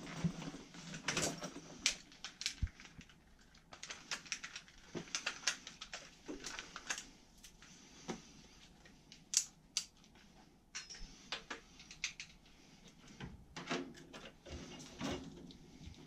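Hand tools and a meter being handled and set down: a scattered run of light, irregular clicks and clacks.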